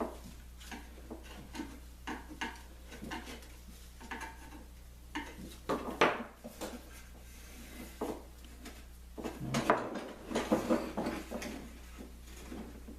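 Glue squeeze-out being scraped and picked off wooden laminations: scattered scrapes, clicks and light knocks of a hand tool on wood, with a sharp knock about halfway through and a busier run of scraping near the end. A low steady hum sits underneath.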